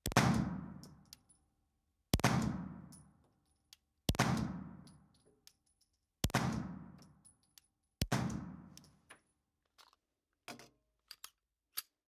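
Five 9mm shots from a Girsan MC9 Match pistol fired offhand, about two seconds apart, each sharp crack ringing out in the indoor range. A few small clicks of the pistol being handled follow near the end.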